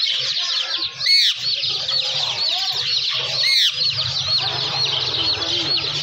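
Male Indian ringneck parakeet calling, with two loud harsh screeches about a second in and again about three and a half seconds in, over a steady high twittering of chirping birds.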